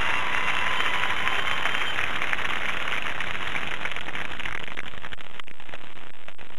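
Marching band holding a high note, which cuts off about two seconds in, under crowd applause; the applause then carries on alone as a dense, steady clapping.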